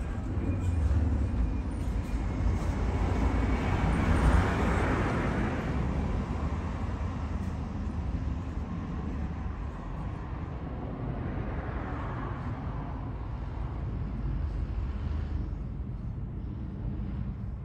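Outdoor ambience of road traffic: a steady low rumble and hiss, swelling into a louder rush as a vehicle passes about four seconds in, and again more softly around twelve seconds.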